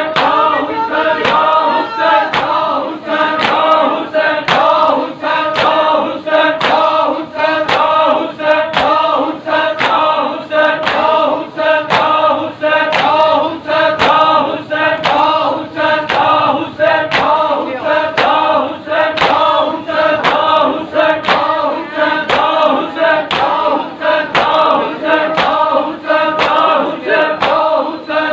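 Men chanting a noha in unison while bare-chested mourners beat their chests in matam, the palm slaps keeping a steady beat of about three strokes every two seconds under the singing.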